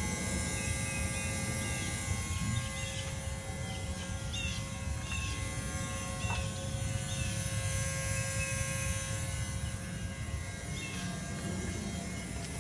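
Steady electrical buzz with a low hum from near the firewall of a parked 2003 Volkswagen Jetta VR6, engine off. The owner takes it for a relay and links it to an intermittent fault that keeps draining the battery.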